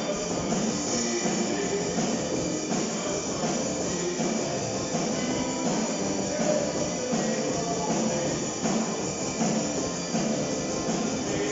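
A small rock band playing a song together: electric guitars over a drum kit with cymbals, with no pause.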